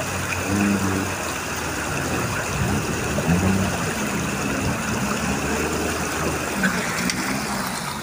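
Off-road 4x4's engine running, its pitch rising and falling several times as it is revved.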